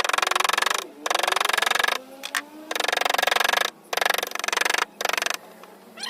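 Repeated rasping strokes of a tool working hardwood, five strokes of about a second each with short pauses between them.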